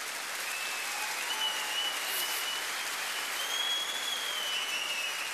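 Large outdoor audience applauding, with a long, wavering high whistle running over the clapping for most of it.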